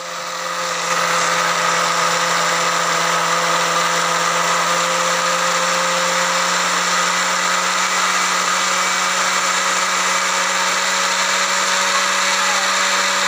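Electric kitchen blender running, grinding dry fish-feed pellets into powder. The motor builds up to speed over the first second, then holds a steady, even whine with a grinding hiss.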